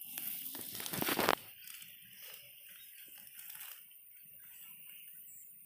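Grass and dry stems rustling and crunching close to the microphone as a hand works through the vegetation. The rustle is loudest in the first second or so and cuts off sharply, then only faint scattered rustles follow.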